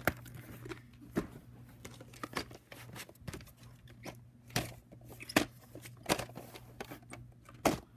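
Plastic VHS clamshell cases being handled and turned over on carpet: scattered light clicks and knocks, about half a dozen, over a faint steady low hum.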